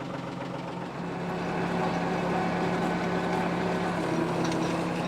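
Tractor engine running steadily, getting louder about a second in and holding at the higher level.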